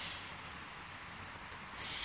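Faint steady hiss of background ambience, broken near the end by a single sharp click as a spoon goes into a camp pot.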